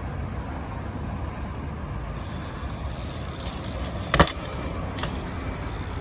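A steady low rumble with one sharp knock a little past four seconds in, and a couple of lighter clicks about a second later.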